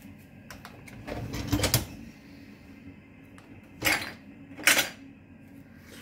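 Dishes and glasses rattling and clattering in the loaded racks of a Hotpoint dishwasher: a longer rattle about a second in, then two short, sharp clatters near four and five seconds.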